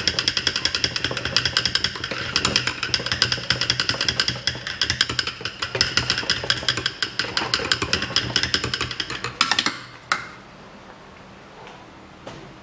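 A thin metal rod stirring water and shampoo inside a plastic bottle, rattling and clinking rapidly against its sides. It stops about ten seconds in with a light knock.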